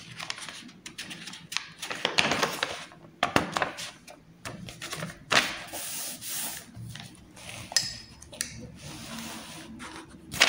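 Paper notebook pages being handled and turned: irregular rustling and rubbing of paper, with a few short taps.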